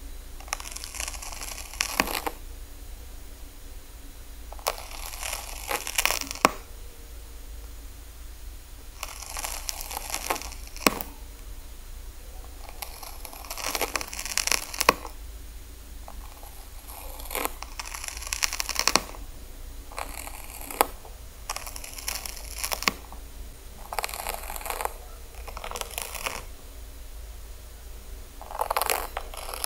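A Mesodon zaletus land snail rasping at a piece of carrot with its radula: short bursts of crunching and crackling, each with a few sharp clicks, come every two to four seconds over a steady low hum.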